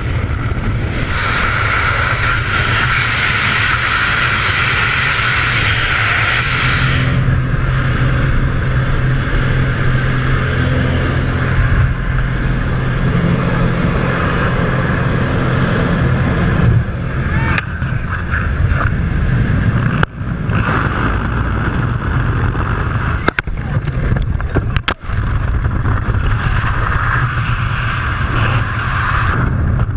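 Steady rushing wind buffeting a skydiver's helmet-camera microphone in freefall. It is hissier for the first several seconds, with a low hum under it until about halfway, and it drops out briefly a few times later on.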